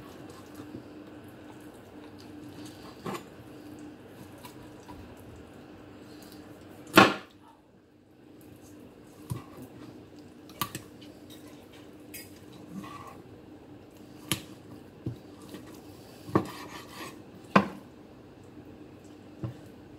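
Kitchen knife knocking and tapping on a cutting board at irregular intervals as bone and skin are cut from raw chicken breast, with the loudest knock about seven seconds in. A faint steady hum runs underneath.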